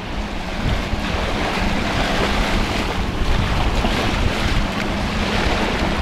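Baltic Sea waves washing onto a sand spit, with wind buffeting the microphone in a steady low rumble.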